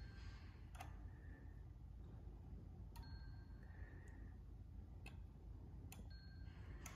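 Near silence: a steady low hum with about five faint, sharp clicks at uneven intervals.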